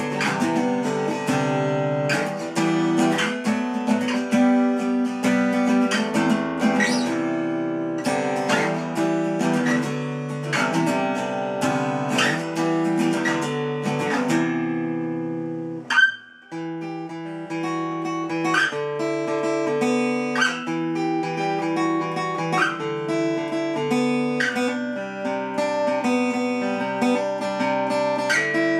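Steel-string acoustic guitar strummed in a steady rhythm through changing chords, without singing. About halfway through the strumming stops briefly after a sharp percussive hit, then resumes.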